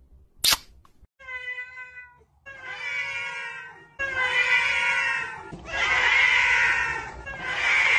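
A short sharp click about half a second in, then a single drawn-out cat meow. After that, a tuxedo cat's meows are stacked over one another into a loud overlapping chorus of meowing that swells and dips.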